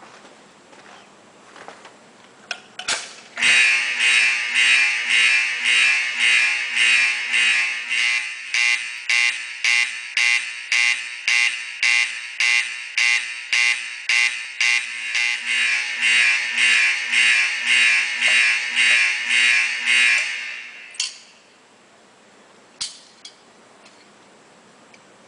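Standard Electric Time fire alarm system sounding: a buzzing alarm tone in rapid, even pulses, about two a second. It starts about three seconds in and cuts off about four seconds before the end, with a few sharp clicks just before it starts and after it stops.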